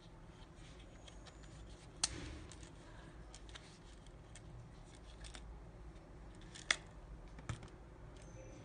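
Handling noise of steel fixed-blade knives and their leather sheaths as a knife is drawn from its sheath. Faint rubbing and light ticks are broken by two sharp clicks a few seconds apart, the later one louder.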